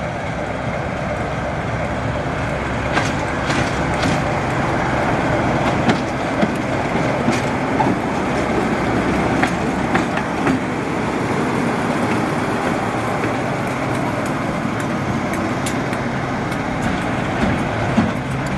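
Class 47 diesel locomotive D1842 with its Sulzer twin-bank engine running steadily as it draws slowly past at close range. The wheels click over rail joints, with a scatter of sharp clicks in the first half.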